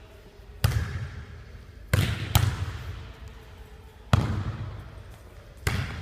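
A basketball bouncing on a hard floor, about five separate bounces at uneven intervals, each echoing briefly.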